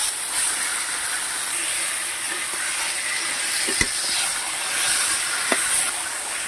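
Boiled taro leaves and stems sizzling in hot oil in a metal kadai while being stirred with a metal spatula: a steady frying hiss, with two light clicks of the spatula against the pan around four and five and a half seconds in.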